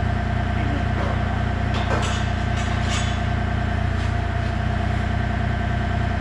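Compact excavator's diesel engine running steadily while it holds a hoist frame on chains, with a few light knocks about two to three seconds in.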